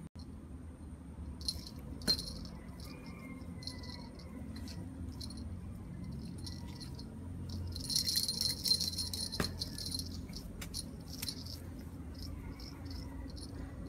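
Light metallic jingling and rattling with scattered clicks, coming in clusters and busiest about eight to nine seconds in, as a crowd of kittens paws and climbs at a wire-mesh cage after a cat-teaser toy.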